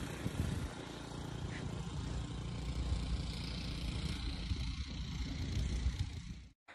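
An engine running steadily with a low rumble, cutting off abruptly near the end.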